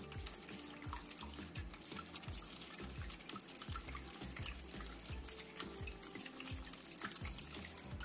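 Water trickling and splashing as it spills from tier to tier of a small cement tabletop waterfall fountain, with soft background music.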